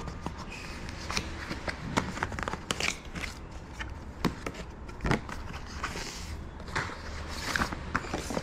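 Cardboard gift box being opened by hand and its card and paper packaging handled: an irregular run of light taps, clicks, scrapes and paper rustles.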